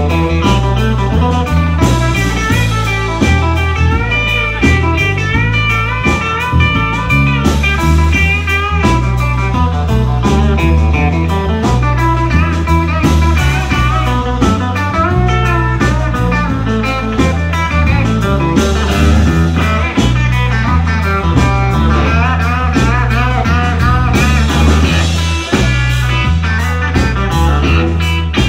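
Live blues band playing an instrumental passage: a lead electric guitar with bent, wavering notes over a steady bass line and drums.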